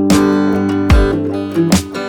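Music: strummed guitar over a steady low drum beat.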